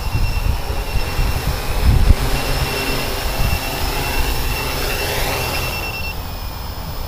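Radio-controlled hexacopter's six electric motors and propellers running with a steady high whine that shifts in pitch as it sets down on the grass; the main whine stops about six seconds in. The flight is cut short by a low battery. Wind rumbles on the microphone, heaviest in the first couple of seconds.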